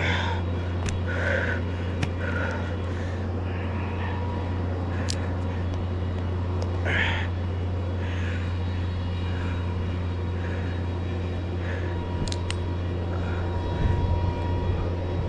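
Steady engine drone, with scattered short rustles and a few sharp clicks over it.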